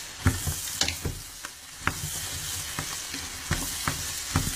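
Sliced mushrooms, onion and bacon sizzling in hot butter in a stainless steel pot. They are stirred with a wooden spoon that knocks against the pot several times.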